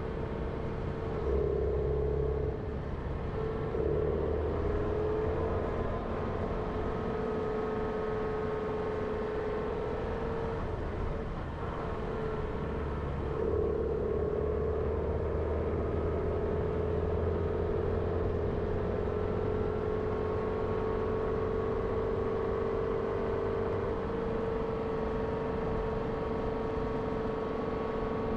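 Jeep Renegade driving: engine and tyre noise with a steady whining note that wavers and dips a few times in the first half, then slowly sinks.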